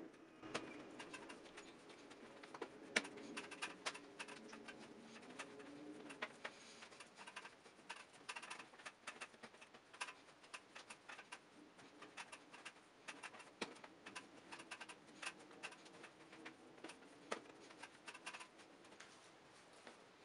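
Hands kneading a soft yeast dough for steamed bao on a wooden tabletop: irregular soft clicks, taps and sticky crackles as the dough is pressed, folded and peeled from the wood.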